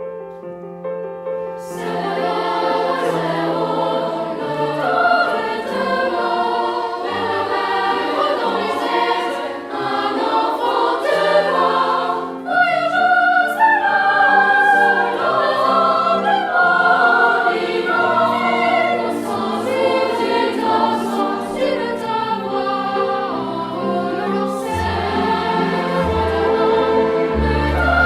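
Music: a choir singing with accompaniment, growing fuller about two seconds in.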